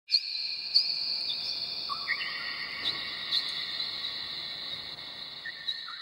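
Bell-like chime tones struck one after another, about a dozen in all, each ringing on at its own high pitch so that they overlap in a sustained shimmer.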